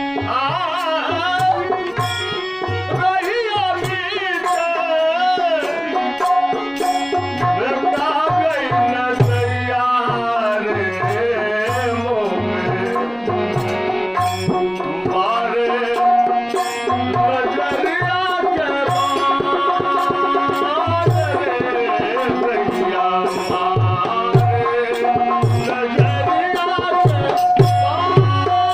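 Tabla playing a teen taal rhythm, its low bass strokes repeating steadily, under a gliding, wavering melody line in an instrumental interlude of an Indian devotional folk song.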